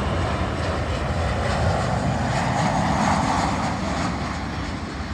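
Jet airliner engines at takeoff power, a steady loud rushing roar that swells in the middle and eases slightly toward the end.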